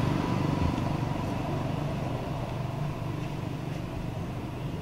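Motor vehicle engine running steadily, its low hum slowly fading away.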